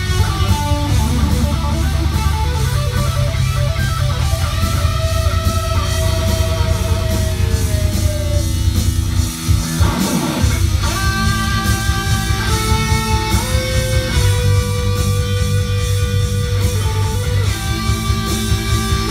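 Electric guitar playing a melodic lead line with long held notes over a steady beat and bass. About halfway through, the low end drops out for a moment under a sweeping, sliding guitar sound, then the lead picks up again.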